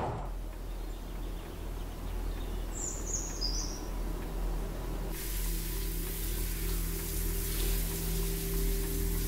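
Quiet background ambience with a steady low hum and a brief high bird chirp about three seconds in. A little past halfway a steady hiss and a held low tone come in.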